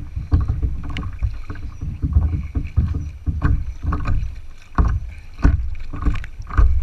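Small waves slapping and splashing against the plastic hull of a paddleboard, close up, in an irregular run of low thuds and knocks.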